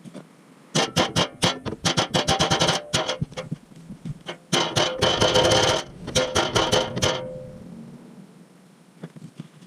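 A dented steel car skid plate, about 3 mm thick, being struck rapidly many times to beat it straight, ringing like metal with each blow. There are two runs of quick strikes with a short pause between them, about four seconds in.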